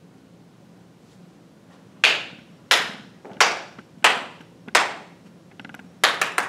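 A man clapping his hands: about two seconds of quiet, then five slow, evenly spaced claps, then a quick run of claps near the end.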